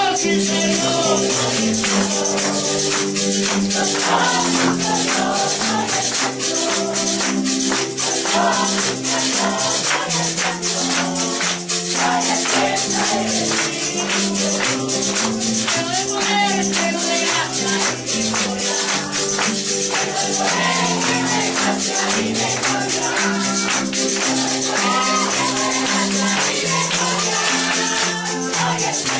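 Church worship music with a tambourine shaken steadily throughout, over sustained instrumental notes that change pitch.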